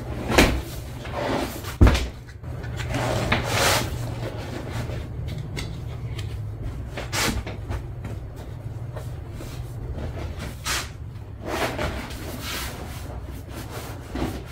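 Rustling fabric and scraping handling noises as an upholstered seat-bottom cushion's cover is worked on and the cushion turned over, with a sharp knock about two seconds in. A steady low hum runs underneath.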